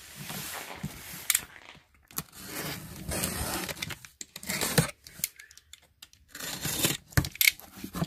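An orange box cutter slicing along the packing tape on a cardboard box's seam in long scraping strokes, followed by sharp knocks and rustles of cardboard as a flap is pulled open near the end.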